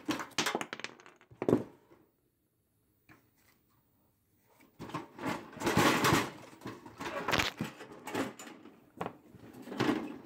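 Irregular knocking and clattering of the sheet-steel and plastic casing of a Black & Decker countertop oven being pried and pulled apart by hand. There is a short burst of knocks at first, a silent gap of about three seconds, then a longer stretch of dense rattling and banging.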